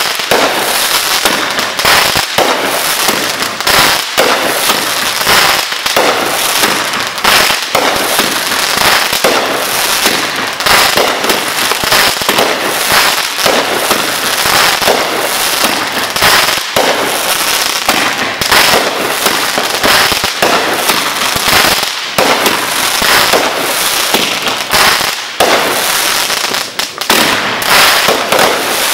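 Consumer fireworks going off at close range: a loud, near-continuous run of sharp pops and bangs with dense crackling from the bursting stars.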